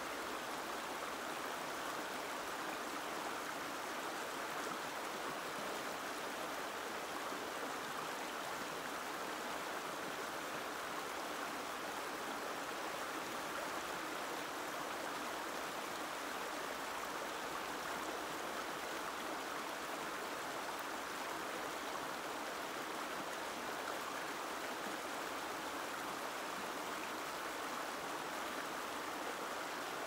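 Gentle river stream flowing: a steady, even rush of running water.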